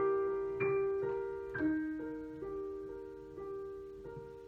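Solo piano playing slow closing notes and chords, struck about once a second and left to ring, the sound dying away toward the end.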